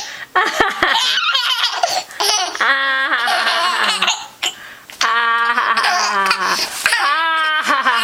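A young child laughing in repeated bursts, with a short lull about four seconds in.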